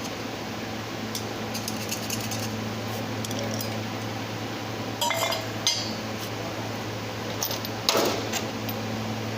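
Small metal parts and tools clinking and knocking as they are handled, with light ticks early on and two louder clatters about five and eight seconds in, over a steady low hum.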